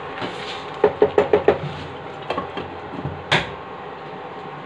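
A wooden spatula knocked quickly about five times against a frying pan, then a glass lid set down on the pan with a single sharp clack, over a steady hum.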